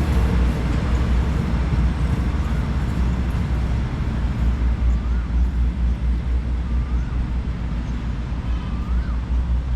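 Departing express train running with a steady low rumble that eases slightly as it moves off. A few short high chirps sound over it in the second half.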